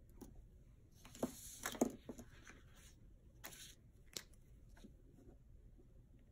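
Paper planner pages and stickers being handled: a quiet rustling and peeling, with a couple of sharp taps about a second in, another short rustle past the middle, and a light tick soon after.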